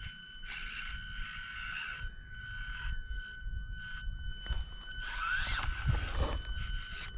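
Axial SCX24 micro RC crawler driving over rocks: its small electric motor and gears whir in short stop-start bursts, with a steady high-pitched whine. Around five seconds in the whir rises and falls in pitch as it pushes harder, with tyres scraping on rock.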